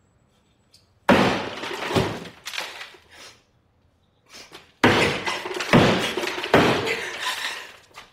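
Hammer striking a drywall wall again and again, each heavy blow cracking and crumbling through the board. The blows come in two flurries with a short pause between.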